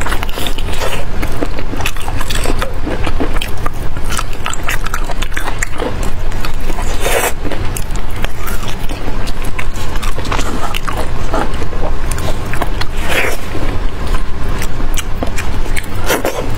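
Close-miked eating sounds: a person biting and chewing sauce-coated meat, a dense run of small clicks and smacks.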